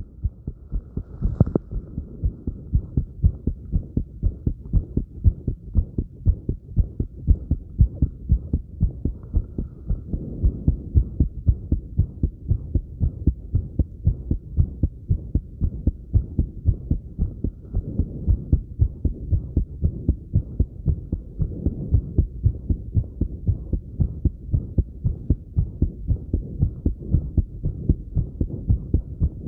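A human heart beating fast and regularly after light exercise, each beat a dull low thud, steady throughout.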